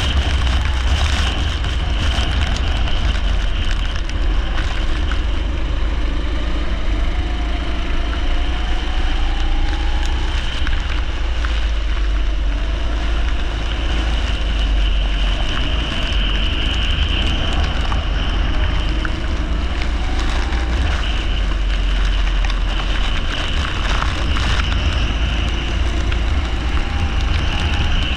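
Leisure kart engine running at race speed, its note rising and falling with the throttle, over a steady rushing noise of wind and a wet track.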